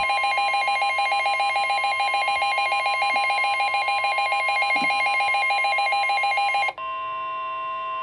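Midland NOAA weather radio in alert mode: its own rapid pulsing alarm beeps over the steady NOAA Weather Radio warning tone. Near the end the beeping stops suddenly and the plain steady warning tone goes on, the tone that comes just before a severe thunderstorm warning is read.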